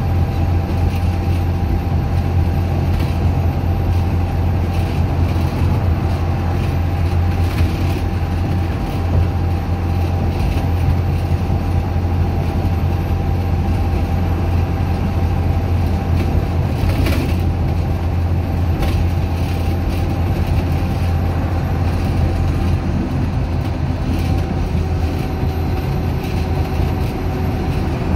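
Dennis Dart SLF bus with a Euro 3 Cummins diesel engine, running steadily under way, heard from inside the saloon. A deep engine drone sits under road noise, with a faint steady whine and the odd light knock or rattle.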